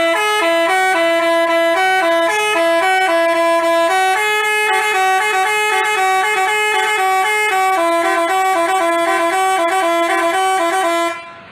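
Basuri telolet multi-tone bus horn playing a quick tune in two voices, its notes stepping up and down several times a second; it fades and stops near the end.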